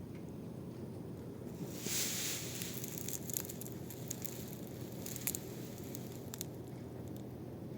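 Air conditioner running with a steady low hum; from about two seconds in, soft rustling and hiss with scattered small clicks.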